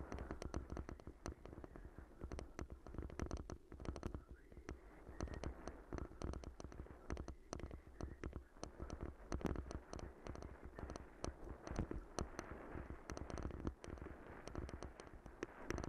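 Bicycle rolling over a rough, muddy woodland track: tyres rumbling on the dirt, with many irregular clicks and knocks as the bike rattles over bumps and ruts.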